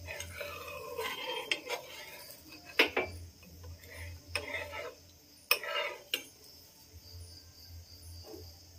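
Metal kitchen utensils clinking and scraping on a frying pan, with a few sharp clinks among softer scraping.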